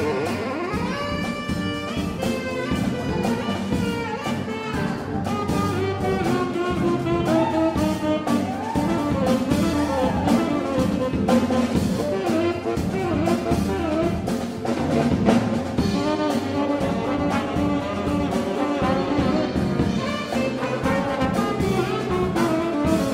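Jazz big band playing, the brass section prominent over a rhythm section keeping the beat.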